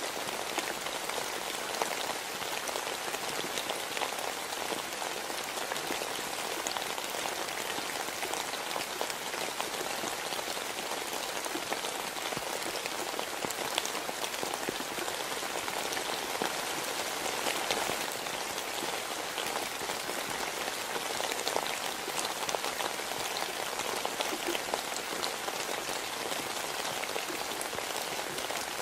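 Steady rain falling: an even hiss with many fine drop ticks, unchanging throughout.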